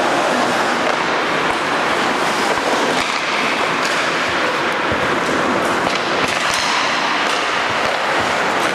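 Steady hiss of an ice hockey game in play, with skates carving the ice and a few faint clicks of sticks and puck.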